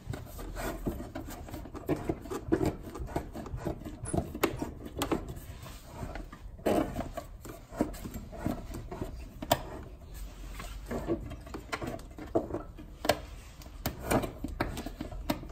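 Automatic pipe cutter being turned back and forth by hand around a copper pipe: repeated scraping and clicking as its blade scores into the pipe. The blade is old, and the plumber thinks it is due for replacement.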